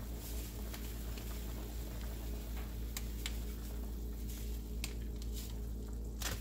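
A stainless pot of pork sinigang boiling steadily on an electric stove, with a few light ticks and taps while a packet of seasoning mix is shaken over it, the loudest tick near the end.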